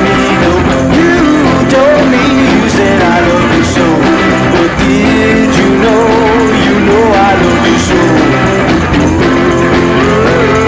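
Background music: a rock song with a sung or lead melody over a steady band.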